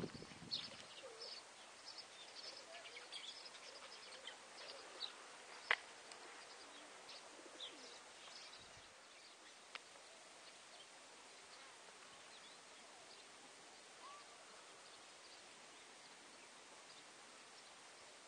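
Scattered faint bird chirps over a quiet outdoor background, thinning out after about eight seconds, with one sharp click a little before six seconds in.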